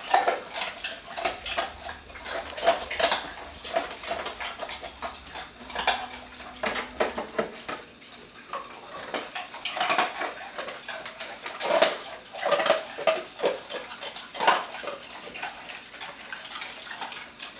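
Ice cubes clinking and clattering out of a refrigerator's door ice dispenser, worked by a Great Dane, in many scattered sharp clicks with a faint hum from the dispenser during the first few seconds.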